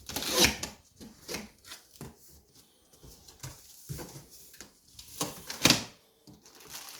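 A cardboard box being opened and its contents handled: scattered knocks, scrapes and rustles, with two louder ones about half a second in and near six seconds.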